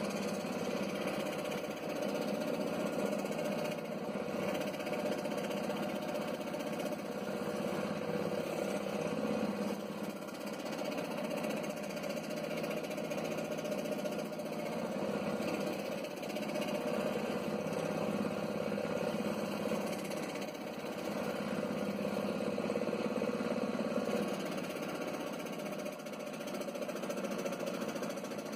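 Scroll saw running steadily, its blade cutting through a thin board along a paper pattern, with a few small dips in level as the piece is turned.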